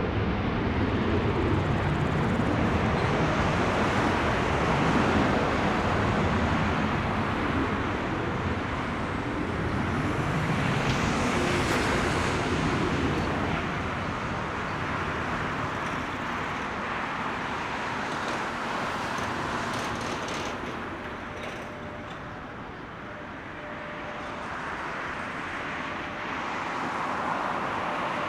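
Boeing 737-900's CFM56 jet engines at takeoff thrust, a continuous broad rumble that slowly fades through the second half and swells again slightly near the end.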